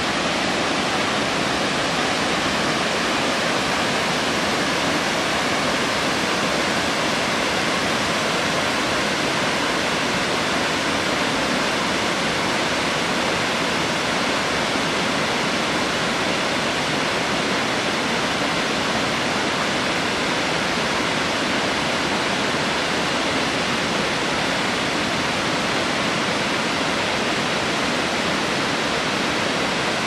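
Waterfall cascading over rock: a steady, even rush of falling water that does not change.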